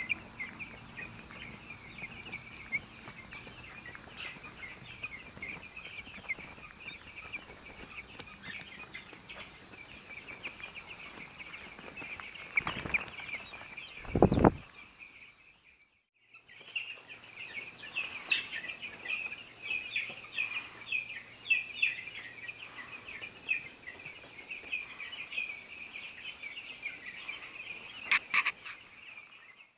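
Many young chicks peeping, a dense, continuous high-pitched chirping chorus. About fourteen seconds in there is one loud low thump, then the sound drops out for about a second before the peeping resumes; a few sharp clicks come near the end.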